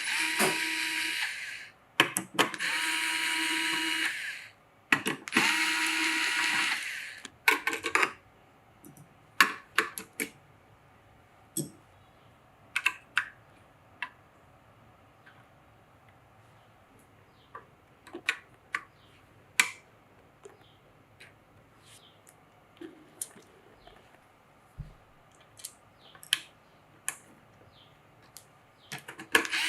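Electric screwdriver running in three short bursts of one to two seconds each, driving screws during a PC build, followed by many scattered light clicks and taps, and a fourth screwdriver burst starting at the very end.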